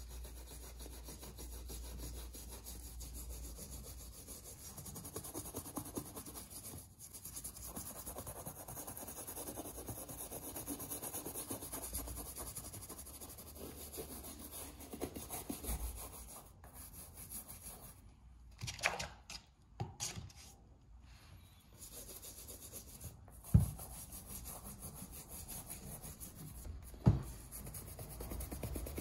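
Toothbrush scrubbing a white leather sneaker with a toothpaste and baking-soda paste: a steady scratchy rubbing of bristles on leather, broken by short pauses. Two sharp knocks come near the end.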